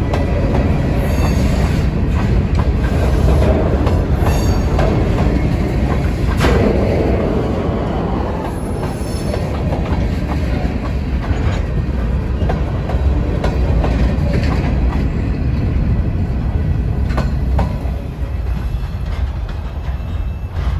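Freight train of covered hopper and tank cars rolling slowly past, steel wheels clicking over rail joints and switches over a steady low rumble, with short wheel squeals now and then. The sound eases a little near the end as the last cars move away.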